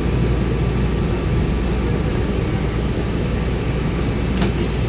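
A bus running on the road: a steady low engine and road rumble, with one short sharp click about four and a half seconds in.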